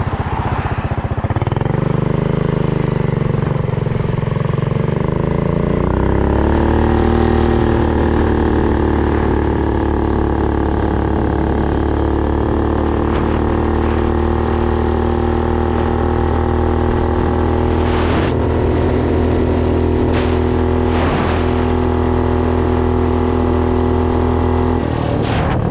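A 420 cc single-cylinder minibike engine running under load as the bike is ridden. Its pitch wavers for the first few seconds, climbs about six seconds in and holds steady at cruising speed, then drops off near the end.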